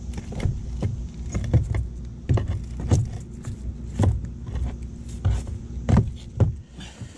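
Things being handled and moved: a string of irregular knocks and light metallic clinks, about two a second, over a steady low rumble.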